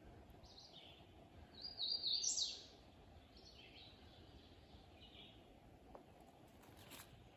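A bird calling in the forest: several short, harsh high calls, the loudest a quick run of rising notes about two seconds in, with fainter calls after it.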